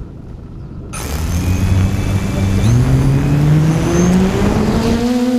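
QAV540G quadcopter's electric motors and propellers spinning up for takeoff from grass. About a second in comes a hum that rises steadily in pitch into a whine, over the rush of the propeller wash.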